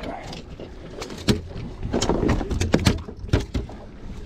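A flurry of sharp knocks and clicks, thickest from about two to three and a half seconds in, over a low steady rumble.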